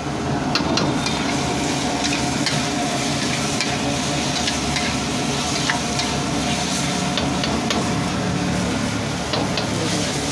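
Momos in spicy gravy sizzling in a wok over a gas flame, with a metal ladle scraping and clicking against the wok as they are stirred and tossed, over a steady low hum.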